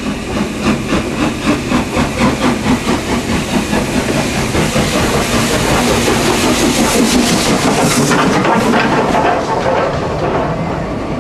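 Southern Railway Schools class 4-4-0 steam locomotive No. 30926 Repton moving slowly past close by. Its sharp exhaust beats, about two to three a second, give way to a loud steady hiss of steam at the cylinders as it draws level, then the sound fades near the end.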